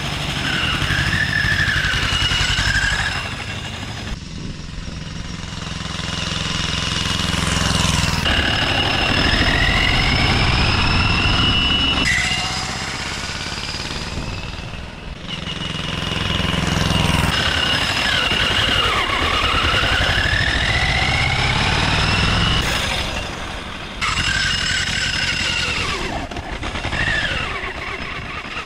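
Turbocharged two-cylinder Yanmar diesel engine of a homemade motorcycle running under way, with a low rapid pulsing and a high whine that rises in pitch several times as it accelerates. The sound changes abruptly in several places.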